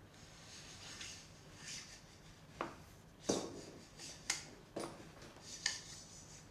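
Hands working on a mountain bike: rubbing and rustling of parts and tools, with five short, sharp clicks and knocks in the middle of the stretch.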